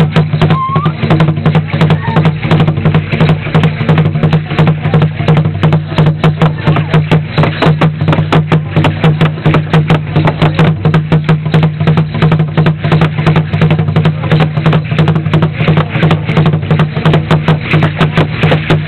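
Large upright wooden huehuetl drum with a skin head, beaten with sticks in a fast, even beat to accompany Aztec dancing.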